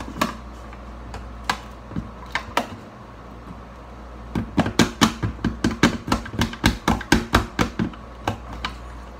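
Spoon mashing avocado in a glass bowl, its edge clicking sharply against the glass. A few scattered taps come first, then from about halfway a quick run of about four taps a second.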